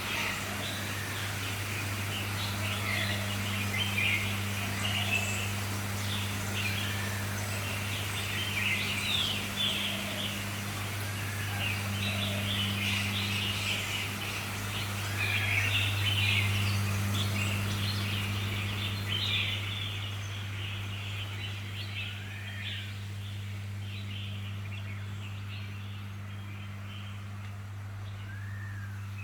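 Many small caged birds chirping and twittering, with short arched calls every few seconds, over a steady low hum. The chirping is dense at first and thins out over the last ten seconds.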